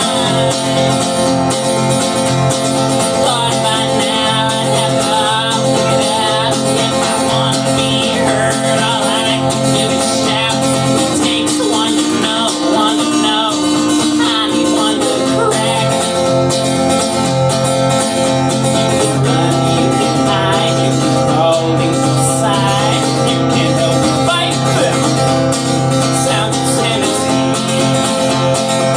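Guitar music in a country style, played live with a steady beat.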